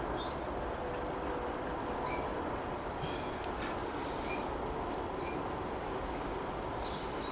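Short high chirps from small birds, four or five times, over a steady background hiss.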